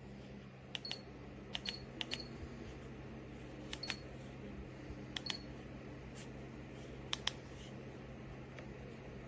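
Buttons on an electric appliance's control panel being pressed repeatedly: a dozen or so sharp clicks, often in quick pairs, several with a short high beep. A steady low running hum continues underneath.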